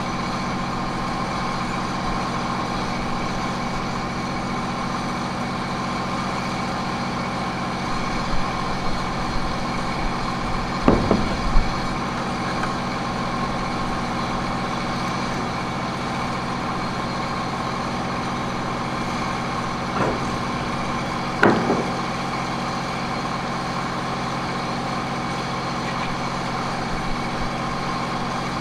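An engine idling steadily, with a few sharp metallic knocks about a third of the way in and twice more about two-thirds through.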